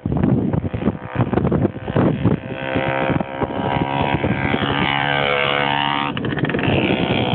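Hercules Prima 5S moped's 50 cc two-stroke engine with a homemade twin exhaust, growing louder as it approaches and passing close by about six seconds in, its pitch shifting as it goes by. Gusty wind buffets the microphone at first.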